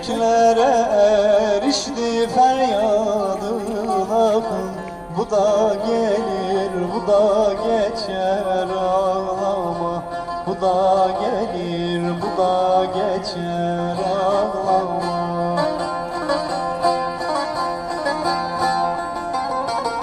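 Music in a Middle Eastern style: a plucked string instrument plays a wavering, ornamented melody over a steady low drone.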